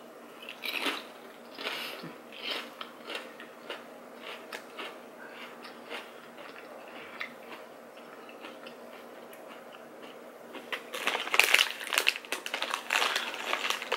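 A person biting into a crunchy chip and chewing it close to the microphone: scattered crunches that grow denser and louder near the end.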